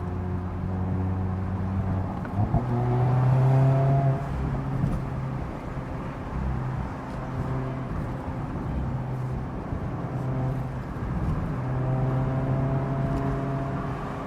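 Mazda MX-5 Miata's 2.0-litre four-cylinder engine and exhaust heard while driving with a manual gearbox, over steady road noise. The engine note climbs under throttle a couple of seconds in and is loudest around four seconds in, then holds steady at cruise and climbs again near the end.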